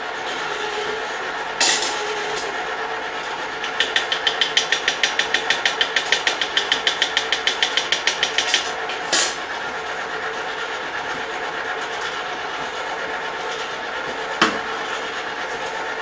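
Small electric kettle popcorn machines running with a steady hum while their pots heat. For about five seconds in the middle comes a rapid, even mechanical clicking, about six clicks a second. A few sharp metal knocks come as the kettle lid is handled to add the oil.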